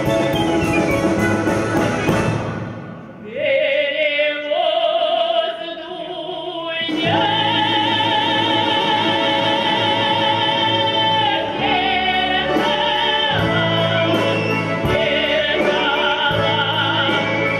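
A woman singing a Cossack folk song solo in a strong, operatic-style voice with wide vibrato, holding one long note in the middle, over ensemble accompaniment. The opening seconds are the full ensemble playing before her voice comes in.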